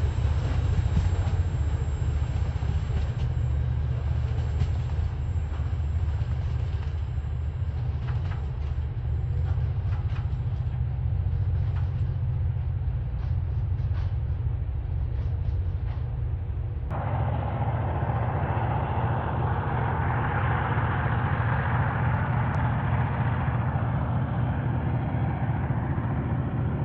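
TasRail container freight train rolling away: scattered faint clicks from the wagons' wheels over a steady low rumble. About 17 seconds in, the sound abruptly turns to a brighter hiss over the same rumble.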